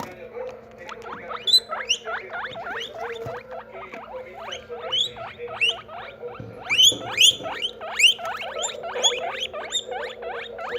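Guinea pigs wheeking: a fast run of short, high rising squeals, several a second and sometimes overlapping.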